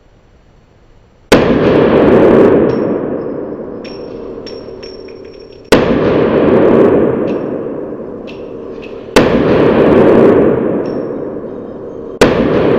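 Sig Sauer P365 9mm pistol fired four times, a few seconds apart, each shot's report sudden and then trailing off slowly over about three seconds.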